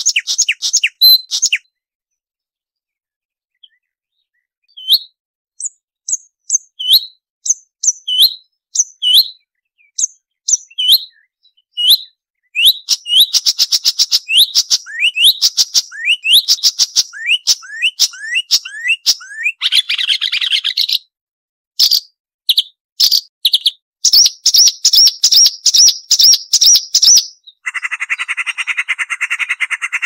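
Marsh warbler singing. After a pause of about three seconds come sharp slurred whistles about once a second, which build into fast, dense trills and rattles. A lower raspy buzz takes over near the end.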